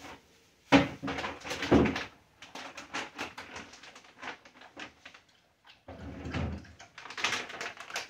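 Food containers and plastic packaging being handled: two loud knocks about a second apart near the start, then a run of small clicks and crinkling.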